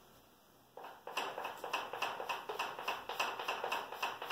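Chalk scratching on a chalkboard in quick, repeated short strokes, several a second, as an eyebrow is hatched in; the strokes start about a second in.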